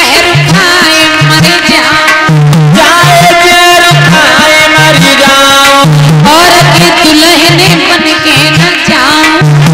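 Hindi devotional folk song (bhajan) performed live: a voice sings over a harmonium and a steady, even hand-drum beat.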